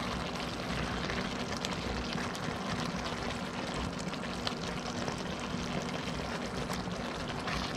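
Fish stewing in sauce, simmering in a pot while sauce is ladled and poured over it, with small clicks of the ladle against the pot. A steady low hum runs underneath.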